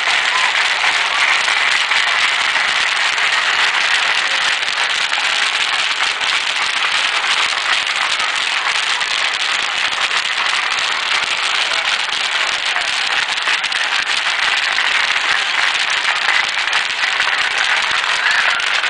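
Dense, unbroken crackle of hundreds of bubble-wrap bubbles popping as a crowd of children stomps and dances across a large sheet of bubble wrap laid on the ground.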